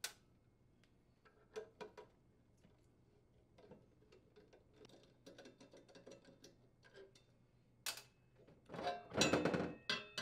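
Scattered small metal clicks and taps as loose parts are handled at the blower fan motor. Near the end comes a louder metal clatter and scrape, about a second long, as the fan motor is pulled off its sheet-metal mounting bracket.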